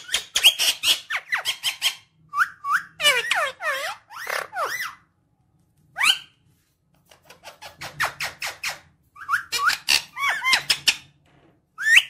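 Indian ringneck parakeet calling in fast chattering bursts of sweeping high-pitched notes and squawks, in runs of a second or two with short pauses between them.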